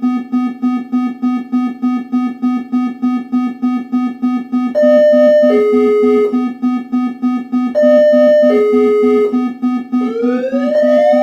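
Synthesizer music: a low electronic tone pulsing about four times a second. From about five seconds in, a higher two-note falling figure plays twice over it, and rising glides in pitch sweep up near the end.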